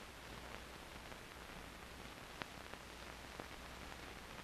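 Faint steady hiss of an old 16mm film soundtrack, with a few single clicks and pops from dust and scratches, the clearest about two and a half seconds in.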